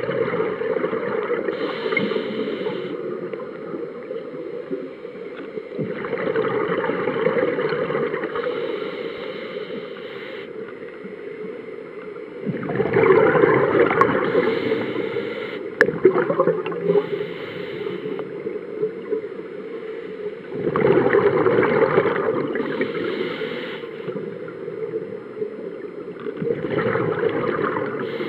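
Scuba diver breathing through a regulator underwater: a bubbling exhale swells up about every six to eight seconds, five times, over a steady low underwater rush.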